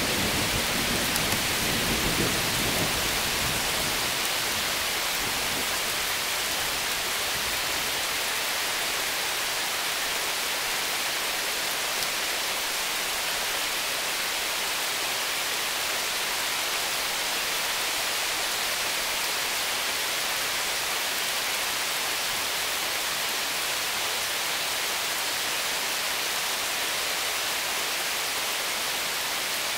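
Heavy summer thunderstorm rain falling steadily on lawn, pavement and roof, a constant hiss. A low rumble in the first few seconds dies away.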